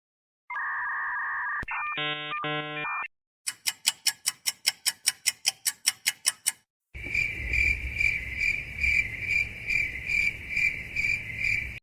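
Meme sound effects played back to back: about two and a half seconds of steady tones, then a fast run of about fourteen sharp clicks, then crickets chirping in an even rhythm, about two chirps a second.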